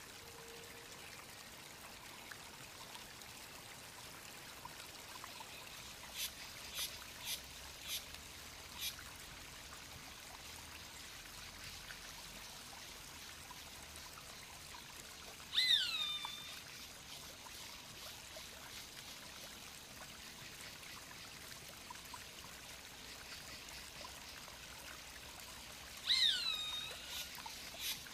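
Roadside hawk calling twice, about ten seconds apart: each call is a shrill, drawn-out scream that slides down in pitch and then levels off, about a second long. Earlier a quick run of five short sharp ticks sounds over a steady hiss.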